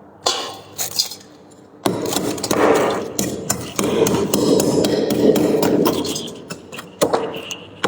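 Freezer frost crunching close to the microphone: a few sharp cracks, then about five seconds of dense, crackly crunching, then more cracks near the end.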